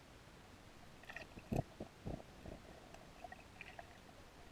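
A few muffled underwater thumps and knocks heard through the GoPro's waterproof housing, loudest about a second and a half in, over a faint steady hiss.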